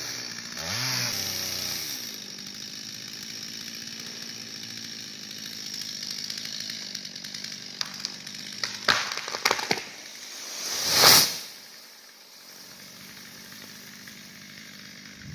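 Chainsaw cutting the back cut of a leaning tree, revving up about a second in and then running steadily. Around nine seconds in, several sharp cracks sound as the hinge wood gives. A couple of seconds later the tree crashes onto the gravel driveway, the loudest sound.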